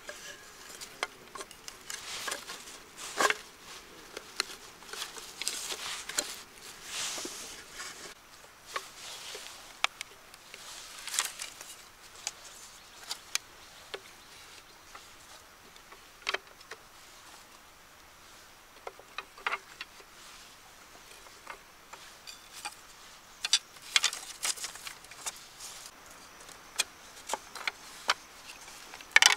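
Irregular light knocks, clicks and short scraping sounds of bamboo being worked by hand.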